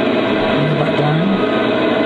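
Sound decoder of a Hattons Class 66 model locomotive playing its diesel engine sound through the model's onboard speaker. The engine note runs steadily, with a brief wavering rise in pitch about halfway through.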